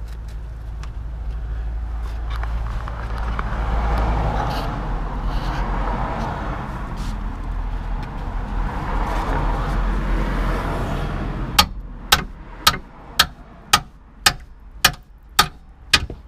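A vehicle passing on the road rises and fades. Then a club hammer strikes the end of a spanner about nine times, roughly two blows a second, to knock loose a seized 18mm nut on the rusty lower suspension arm mounting of a VW Golf MK4.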